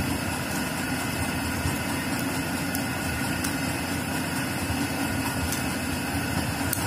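Steady mechanical hum of a running machine such as a room fan, with a few faint light clicks from the plastic trimmer parts being handled.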